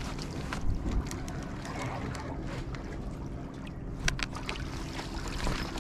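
Sea water lapping and sloshing against concrete breakwater blocks over a steady low rumble, with scattered sharp clicks and taps.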